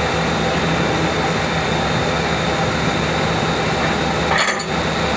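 Steady drone of airport ground machinery running, a low hum under a thin high whine, with a brief clink about four and a half seconds in.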